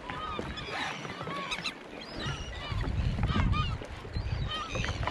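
Seagulls calling: many short squawks, several a second and overlapping. A low rumble rises about halfway through and is the loudest part.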